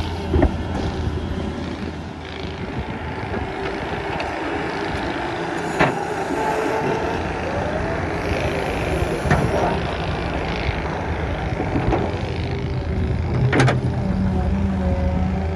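Solar 130 crawler excavator's diesel engine running steadily under hydraulic load while digging, with soil scraping and a few sharp clanks from the bucket or boom.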